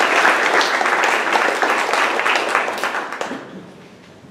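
Audience applauding, many hands clapping, dying away about three seconds in.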